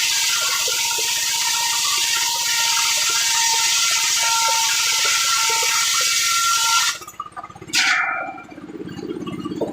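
Sawmill circular saw cutting through timber with a loud, steady whine that breaks off abruptly about seven seconds in. A short loud clatter follows, then a lower, quieter hum.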